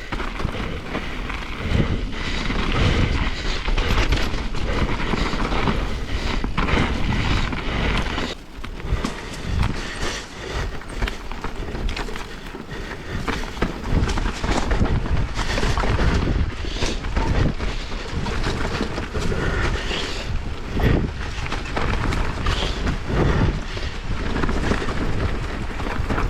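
Mountain bike rolling down a dirt trail: tyres rumbling over the rough ground while the bike rattles and clatters over the bumps, with wind buffeting the camera's microphone.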